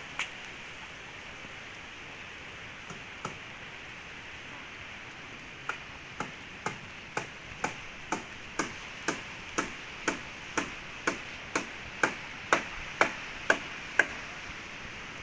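Steady hiss of sea surf, with a run of sharp, evenly spaced clicks about two a second. The clicks start about six seconds in and grow louder toward the end.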